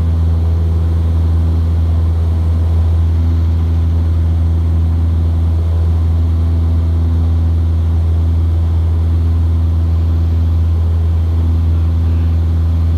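Cessna 172's piston engine and propeller running steady at full takeoff power, heard from inside the cabin as a loud, deep, unchanging drone through the takeoff roll and initial climb.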